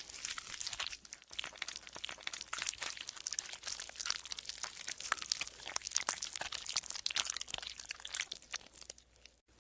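Golden slime being squeezed and worked by hand: a dense stream of small crackling pops and squelches, with a brief break near the end.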